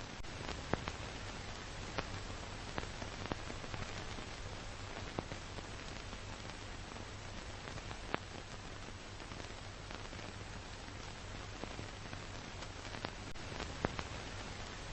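Steady hiss with a low hum and irregular clicks and crackles: the surface noise of an old film soundtrack, with nothing else on it.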